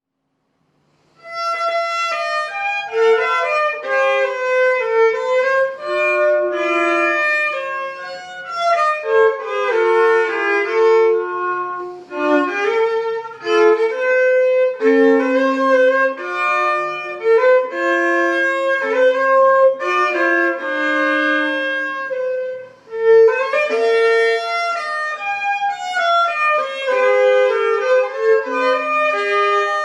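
Baroque violin playing a lively melody of quick successive bowed notes, starting about a second in, with brief pauses between phrases.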